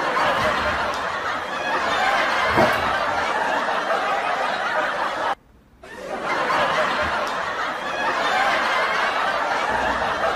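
People laughing continuously, breaking off abruptly for a moment about five seconds in and then resuming.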